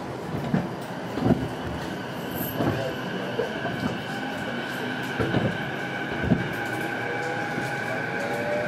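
Running sound heard inside an E233 series electric train motor car: the wheels knock over rail joints about five times at uneven intervals beneath a steady high whine, and a tone starts rising near the end.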